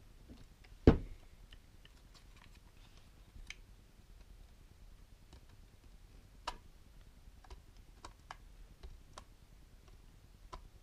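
Hard 3D-printed plastic blaster parts clicking and knocking as they are handled and shifted into place, with one sharp knock about a second in and scattered lighter clicks after.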